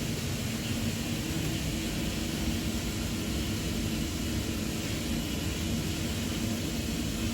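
Freshly serviced commercial gas boiler firing, its burner and fan running steadily with a low hum.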